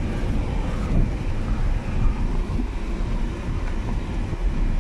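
Car driving along an unpaved dirt track, heard from inside the cabin: a steady low rumble of engine and tyres on the rough surface.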